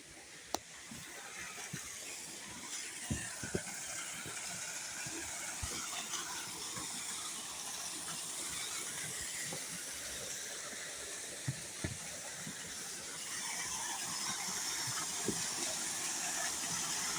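Waterfall over an old stone dam: a steady rush of falling water that grows gradually louder, with a few faint knocks.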